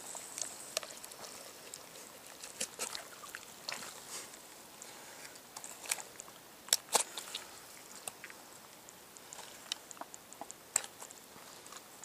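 Quiet, wet handling sounds of bare hands pulling the tenderloin loose inside a field-dressed bull elk's body cavity: scattered soft smacks and clicks of meat and membrane, the sharpest about seven seconds in.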